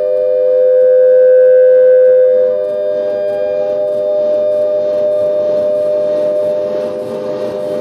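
Several steady, ringing tones sounding together as a sustained drone, one of them swelling louder for the first two and a half seconds and then settling back. These are the room's own resonant frequencies, to which a recorded speaking voice has been worn down by repeated playback into the room.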